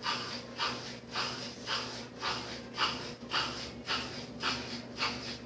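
Brastemp 7 kg washing machine motor growling in rough pulses about twice a second as it tries to start the spin but does not turn, over the steady hum of the running drain pump. The technician suspects a broken wire, the motor's capacitor or a burnt-out motor.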